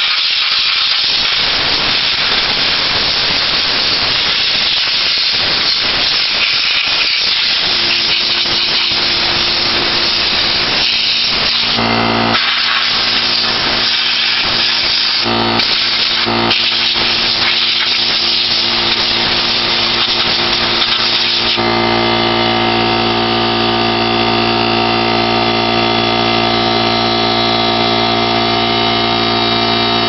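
Compressed air from an air compressor's blow gun hissing loudly as it blasts dust out of vacuum cleaner parts, with a few brief breaks. About eight seconds in, the compressor's motor starts running with a steady hum, and after the blowing stops a little past the two-thirds mark the motor keeps running alone.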